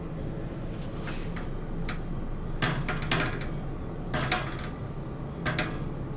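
A cloth wiped around the inside of a heavy-bottomed kadai (wok), making several short rubbing, scraping strokes on the metal. The strokes are strongest through the middle.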